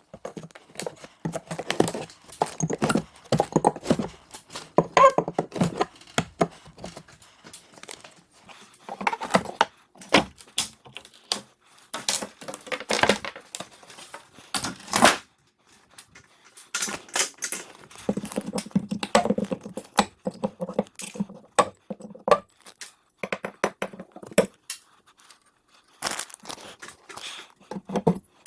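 Irregular knocks, clatter and short scraping sounds of hand work with tools and lumber, in a small echoey room, with a few brief pauses.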